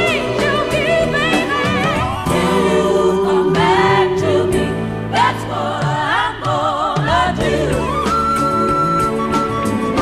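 Background music with singing, in a gospel style: sung melody lines over sustained chords.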